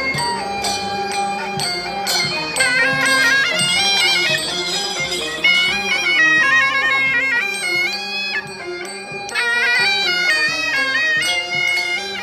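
Traditional Chinese folk music led by a reed wind instrument playing an ornamented melody, with percussion strokes underneath.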